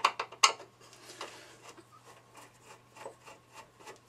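Two sharp clicks in the first half-second, then soft rubbing and ticking, a few ticks a second, of a screwdriver turning a T20 Torx screw out of the front corner of a Smart Forfour's plastic headlight housing.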